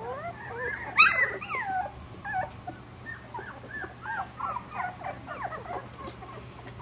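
Young Australian Shepherd puppies whimpering and squeaking in many short, high cries that rise and fall, with one louder yelp about a second in.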